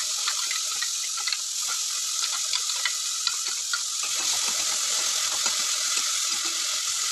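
Onions and fresh ginger-garlic-tomato-chilli paste sizzling steadily in hot oil in a stainless steel pan, with many small crackles and pops, while a spoon stirs them.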